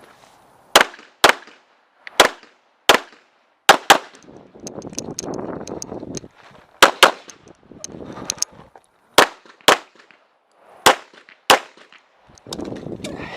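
Handgun shots in quick pairs, about a dozen in all, spread across the course of fire, with scuffling movement noise between the groups of shots.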